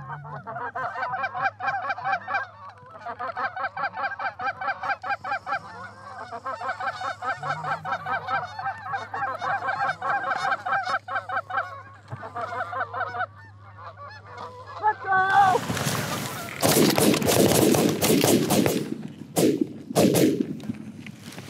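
Canada geese honking in a long, rapid, steady series. About fifteen seconds in, this gives way to a loud rush of rustling and several shotgun shots.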